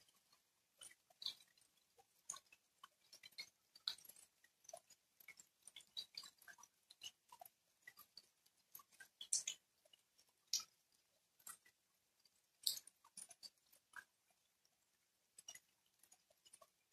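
Light rain: scattered single raindrops tapping and splashing at an irregular pace, several a second, with almost no steady rain hiss between them.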